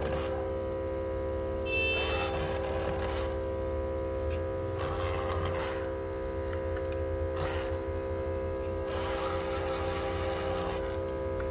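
Small electric motor of a handheld glue-remover tool whirring steadily, with its spinning steel pin scraping in short, irregular spells at the glue and cracked glass along the edge of a phone LCD.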